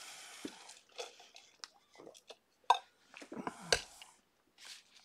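Handling noises as someone reaches for things at a desk: scattered small clicks and soft knocks, with two sharper knocks about three and four seconds in.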